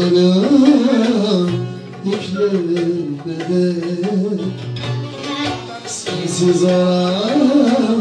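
Live Turkish folk music in bozlak style: a bağlama (long-necked saz) played with a hand drum, and a male voice holding long, ornamented wavering notes near the start and near the end.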